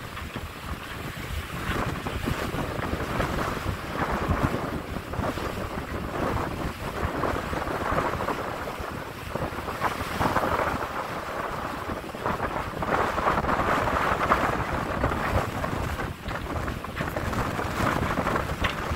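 Wind buffeting the microphone over the rush and splash of water along a catamaran's hulls as it moves through open sea, the water noise rising and falling in surges.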